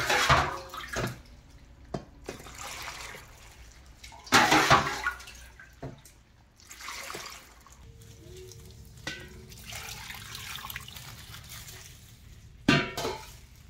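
Salted brine poured from a stainless steel bowl into a plastic container packed with sliced radish and radish greens, splashing in a few separate pours.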